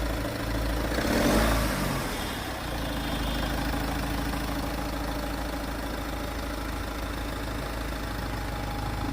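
Truck engine idling steadily, with a brief louder rush of noise about a second in.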